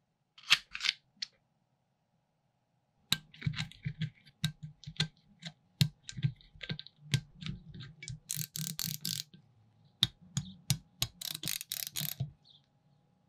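Small metal spark plugs being fitted into a miniature Toyan V8 model engine: sharp metallic clicks and taps as they are seated by hand, then two short runs of a small ratchet's rapid clicking as they are tightened, about two-thirds of the way through and near the end.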